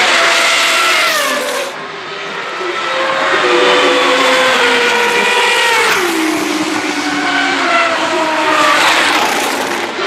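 Single-seater racing cars at full throttle passing one after another down the straight, their high-revving engines dropping in pitch as each goes by: about a second and a half in, around six seconds in, and again near the end.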